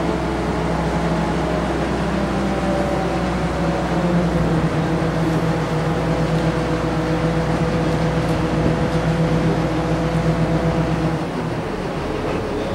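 Railway crane's engine running with a steady drone while it holds a suspended load, easing off slightly about eleven seconds in.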